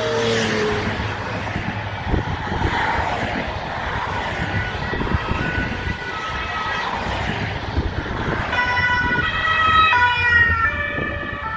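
Sirens of race escort vehicles sounding, several overlapping. They are loudest in the last few seconds, with the two-tone pitch stepping back and forth. Car and motorcycle engines and tyres pass underneath.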